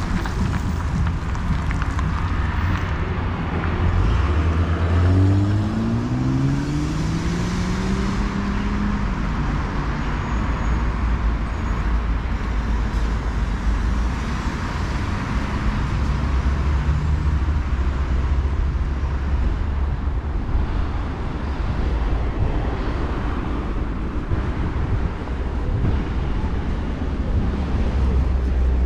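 Road traffic running along a city street, with one vehicle's engine accelerating about four seconds in, its pitch rising for several seconds before fading back into the steady traffic noise.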